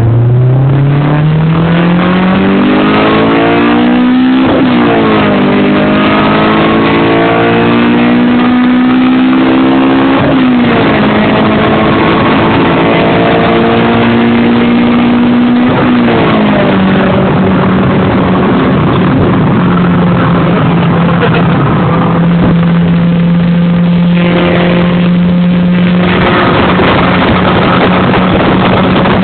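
Car engine accelerating hard through the gears: its pitch climbs, drops sharply at gear changes about 4, 10 and 16 seconds in, then holds steady at cruising revs.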